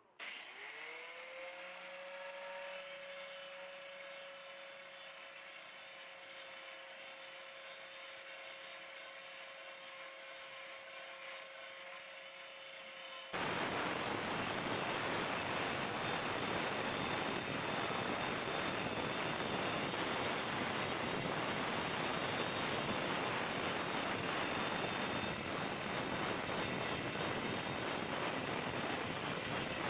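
An electric motor spins up to a steady whine. About 13 seconds in it gives way abruptly to a louder, steady rasping noise like sanding or grinding.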